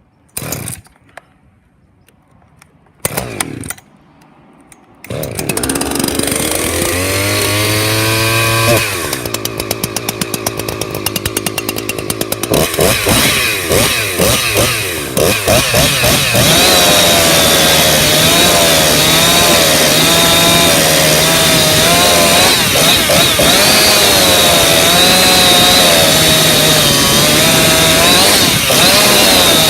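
Husqvarna 359 two-stroke chainsaw with an opened-up muffler. After two brief bursts early on, it starts about five seconds in and revs up. It then runs at high revs under load while cutting hard, dry crab apple wood, its pitch wavering as the chain bites.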